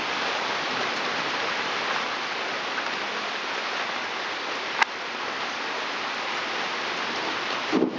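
Steady heavy rain pouring down on a wooden deck and garden, with one sharp click about five seconds in. A low rumble of thunder begins right at the end.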